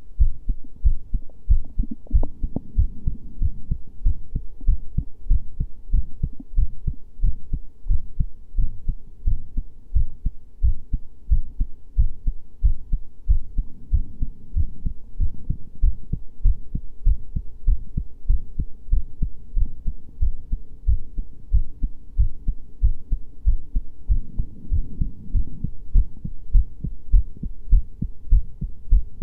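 Heartbeat: a steady, regular run of deep, dull thumps that keeps the same pace throughout.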